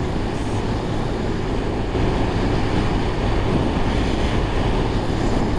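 Wind noise buffeting a helmet-mounted GoPro microphone on a moving motorcycle: a steady rushing roar, a little louder from about two seconds in, coming through despite an improvised wind-muffling fix on the mic. The Honda CG 160 Fan's quiet single-cylinder engine is lost beneath it.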